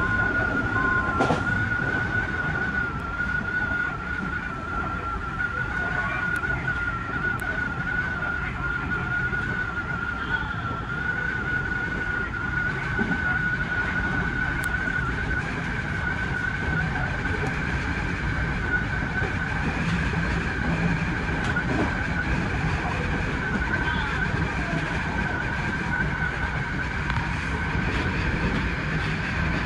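Odakyu 3000 series electric train running along the line, heard from behind the driver's cab: a low rumble of the running gear under a steady high whine that drifts slightly up in pitch.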